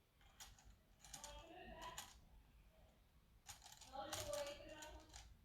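Faint, irregular clicking and light clattering of LEGO Technic plastic parts as the model's small piston engine is turned over.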